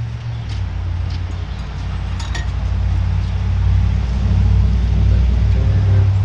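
An engine running with a steady low rumble that grows louder through the second half, with a few light metallic clinks in the first half.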